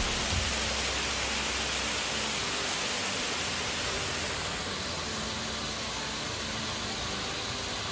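Artificial waterfalls pouring down rock faces into a shallow pool, a steady rushing splash.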